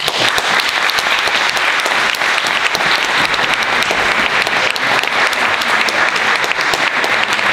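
Audience applauding steadily, a dense patter of many hands clapping in a large hall.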